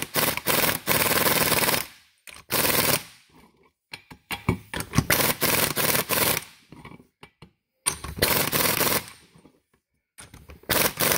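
Pneumatic impact wrench hammering the pinion nut of a Nissan R200 differential in about five bursts, the longest near the start and in the middle. The nut is being run down to set the pinion bearing preload, and it ends up a little tight.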